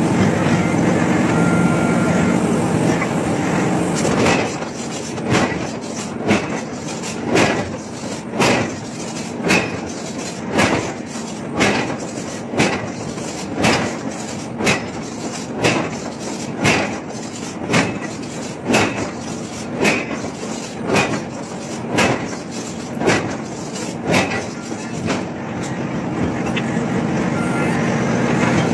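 Heavy forge-shop machinery: a steady mechanical hum for the first few seconds, then regular metallic clanks about once a second that die away near the end.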